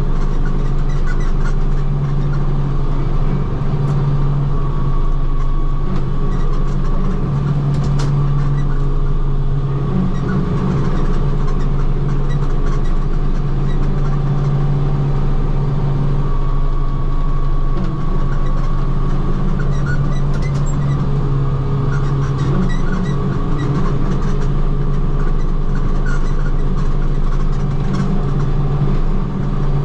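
Tractor engine running steadily under load while it drives a 6-foot International rotary cutter (bush hog) mowing grass and brush. It makes a constant low drone with a faint higher whine, and scattered ticks from material hitting the cutter.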